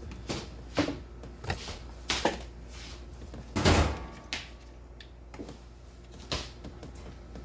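Irregular knocks and clacks from plumbing parts and tools being handled in a tight space, about eight separate hits, the loudest a short clatter about three and a half seconds in.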